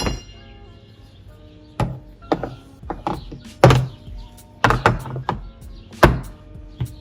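Tools being put back into a tool box: several irregular clunks and knocks between about two and six seconds in, over background music.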